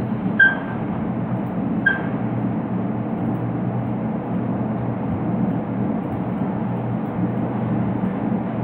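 Steady low background hum, with two short high chirps in the first two seconds.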